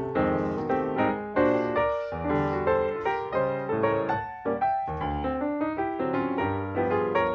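Background piano music: a steady run of struck notes and chords, each starting sharply and fading.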